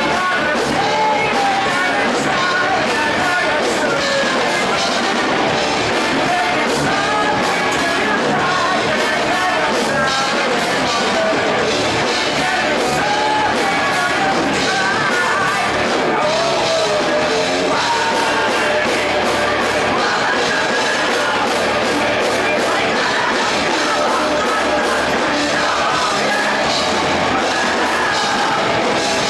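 Live rock band playing loudly: a singer's vocals, partly shouted, over guitars and steadily pounding drums.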